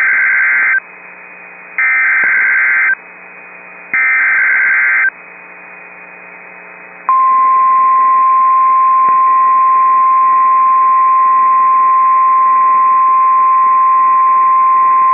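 Emergency Alert System tones over NOAA Weather Radio for a tornado warning. Three short buzzy bursts of SAME header data, about two seconds apart with radio hiss between them, encode the alert. About seven seconds in, the steady 1050 Hz warning alarm tone begins and holds.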